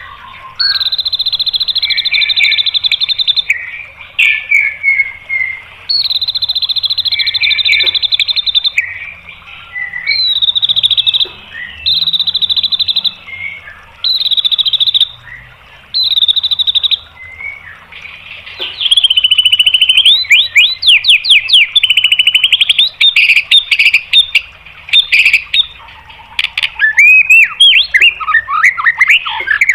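White-rumped shama (murai batu) singing: a series of long, rapid-fire trilled phrases (the "tembakan" phrases of keepers), each lasting one to three seconds with short gaps, then past the middle a continuous, faster run of sweeping and varied notes.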